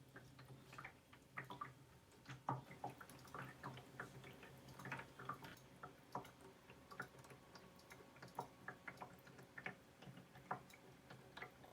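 SXROMDA BD-1919 ultrasonic cool-mist humidifier running: faint, irregular ticking and dripping of water over a low steady hum.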